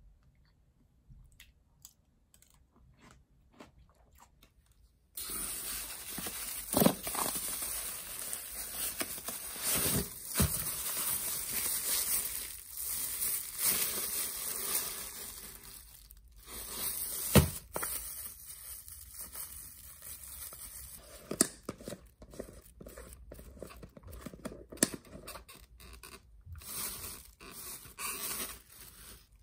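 Thin plastic bags rustling and crinkling as a wrapped jar is handled and unwrapped. The rustling starts suddenly about five seconds in, with a few sharp knocks along the way. Before it there are only faint clicks.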